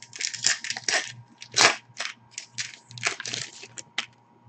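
Plastic trading-card pack wrapper being torn open and crumpled by hand: a quick run of sharp crinkles and rips, the loudest about a second and a half in, ending just after four seconds.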